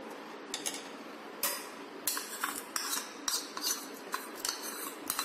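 A steel spoon clinking and scraping against a stainless steel pot while stirring thick milky rice kheer. The sharp clinks start about half a second in and come about three a second.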